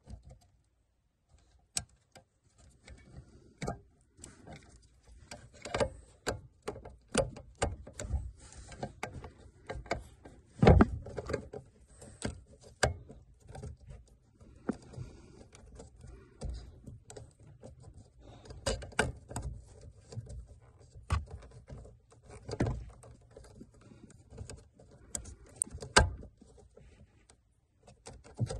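Irregular clicks, taps and knocks of hands and tools working on plastic parts under a car's dashboard while a brake light switch is removed and refitted. The two loudest knocks come about ten and a half seconds in and near the end.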